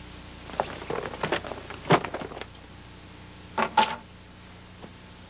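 A run of light metallic clicks and clinks, then two sharper metal clicks about four seconds in, one of them ringing briefly.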